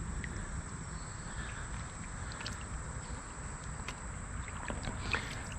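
Steady rushing noise of flowing creek water, with a few faint clicks and a thin, steady high-pitched tone throughout.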